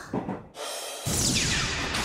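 Anime sound effect and music sting that bursts in suddenly about halfway through, with a whoosh that sweeps down in pitch.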